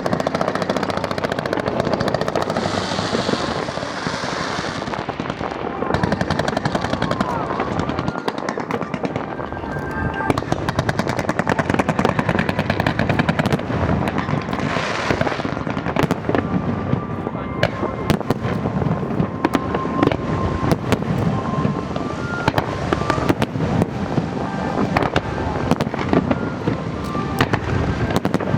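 Aerial fireworks bursting in a rapid, continuous barrage of bangs and crackles, with music playing underneath.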